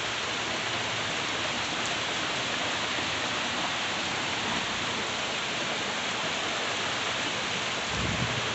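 Heavy rain pouring down, a steady, even hiss, with a brief low rumble near the end.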